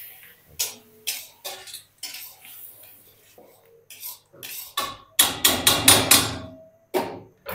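Metal spatula knocking and scraping against a steel wok as chicken is stirred in a paste: scattered clinks at first, then a quick run of clanks about five seconds in.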